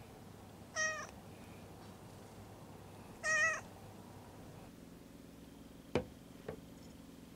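A white-and-orange stray cat gives two short, quiet meows, about a second in and again past three seconds, as it is patted on the lower back by the tail. Near the end come two sharp knocks: a ceramic mug set down on a table.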